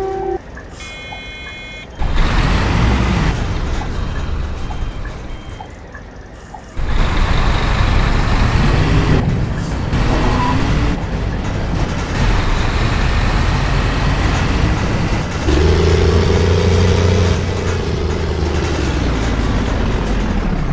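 A bus's diesel engine pulling away and accelerating, its pitch rising and falling several times as it revs up and changes gear, with a heavy, truck-like sound. A few short electronic beeps sound about a second in.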